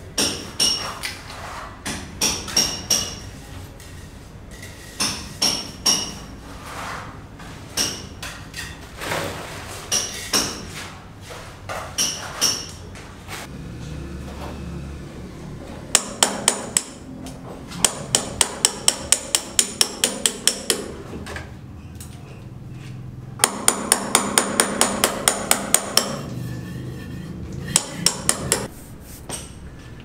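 Hand hammer striking a steel chisel, chipping at concrete and tile with ringing metallic blows. At first the blows come singly, a second or two apart. From about halfway the strikes come in quicker runs of several a second.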